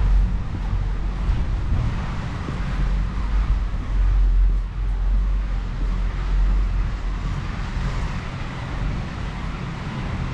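Wind buffeting the microphone: a heavy low rumble that swells and dips unevenly, with a fainter hiss above it.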